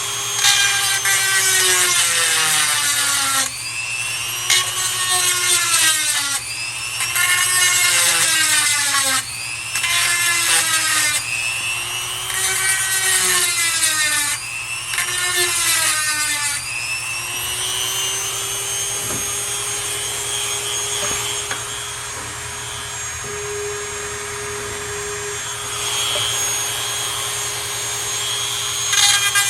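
Electric chainsaw sharpener's grinding wheel spinning and grinding chain teeth: about six times the motor's whine sags in pitch for a couple of seconds as the stone is pulled down onto the teeth, then it runs free at a steady pitch for the last part before dropping again at the very end.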